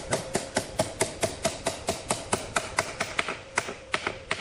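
Quick, even tapping of a tool striking wood, about four knocks a second.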